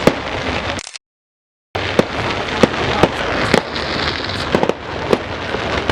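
Fireworks display: many sharp bangs and pops over dense, continuous crackling. The sound cuts out completely for under a second about a second in.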